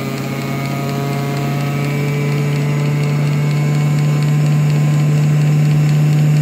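Sun distributor tester running with its built-in vacuum pump just switched on: a steady low hum that slowly grows louder, over the fainter whirr of the tester spinning a 1967 Oldsmobile 4-4-2 distributor. The pump is drawing vacuum on the distributor's vacuum advance unit for the advance test.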